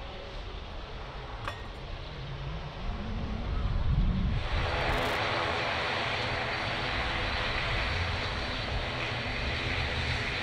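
A taxiing Airbus A380's jet engines give a low rumble that rises in pitch. About four and a half seconds in, it gives way abruptly to an ATR 72-600 twin turboprop taxiing: a louder, steady propeller drone with several even tones.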